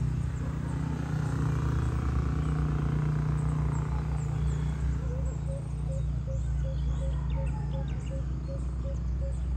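Morning bird chirps over a steady low rumble. About halfway in, a short note starts repeating at an even pace, about two and a half times a second.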